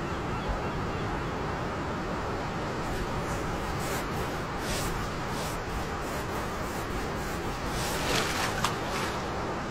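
Steady hubbub of a crowd in a large, echoing shopping-mall atrium, with a few short louder sounds about eight seconds in.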